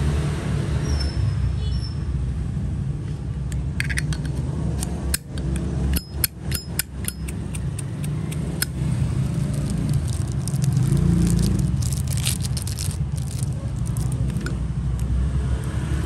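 Sharp metallic clicks and clinks of brass Zippo lighters being handled, scattered through the middle, over a steady low rumble.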